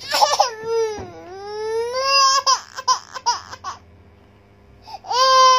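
Infant crying: a long wail that dips and then rises in pitch, a run of short sobbing cries, a pause, and then another wail near the end.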